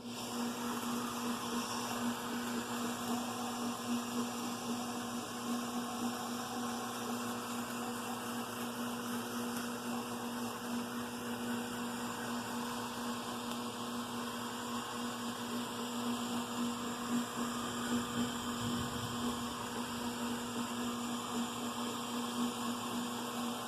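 Electric motor of a lathe running steadily, spinning the vise handle, with an even hum.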